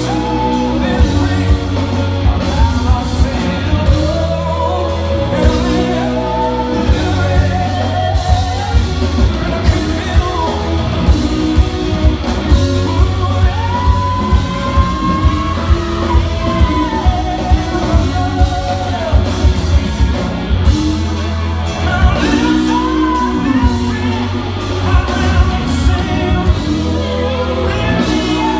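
Rock band playing live, a male singer over electric guitar and a steady drum beat, heard from the audience with the echo of a large hall.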